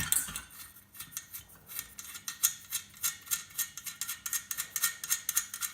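Ratchet spanner undoing a bolt on a metal light fitting: a fast, steady run of sharp metallic clicks, several a second, in repeated strokes.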